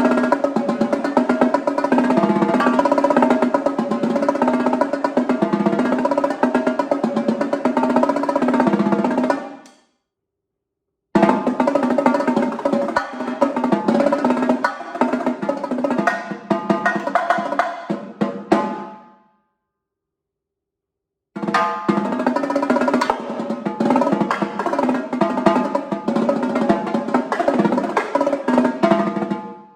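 Tama drum kit played in fast rolls and fills across the drums. It is played in three stretches, each cutting off abruptly into silence.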